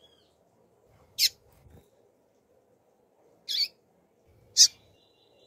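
Female double-collared seedeater (coleiro) giving three short, sharp, high chip calls spread over a few seconds, the last one the loudest.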